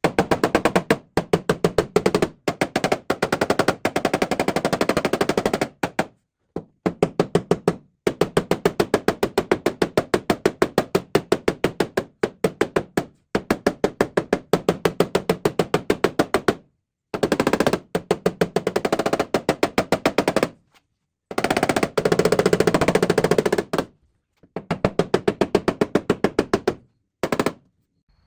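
Rapid metal-on-metal tapping, many light strikes a second, in runs of a few seconds with short breaks: a paintless dent repair tap-down tool knocking down the high spots around a dent in a 1970 Chevelle SS's sheet metal.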